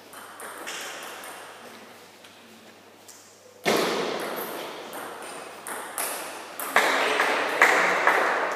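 Table tennis rally: the ball clicking off paddles and table in a series of sharp pings, echoing around a large hall, with a hard hit about halfway through and a flurry of quick strokes near the end.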